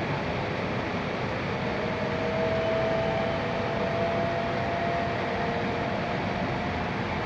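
E6-series shinkansen heard from inside the passenger cabin, running with a steady rumble and rush. A faint whine from the traction motors rises slightly in pitch as the train gathers speed.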